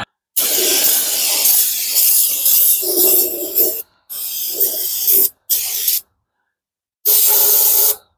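Aerosol brake cleaner hissing out of the can in bursts, sprayed into the lifter valley of a bare cast-iron small-block Chevy engine block to flush out loose bits of debris. One long spray of about three and a half seconds is followed by shorter bursts, with a second's pause before the last one.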